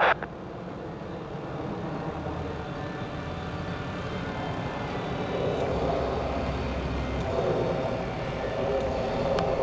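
Jet engine noise from a four-ship formation of F-16 fighters passing overhead: a steady rush that slowly grows louder as the jets approach.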